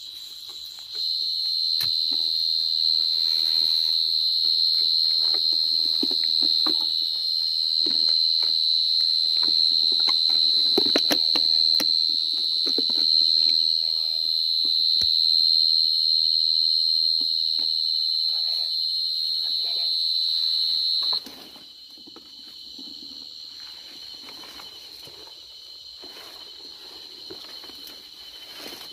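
A cricket singing close by: a loud, steady high-pitched trill that stops suddenly about three-quarters of the way through, leaving a fainter cricket trill, with light rustling and footsteps in the grass beneath.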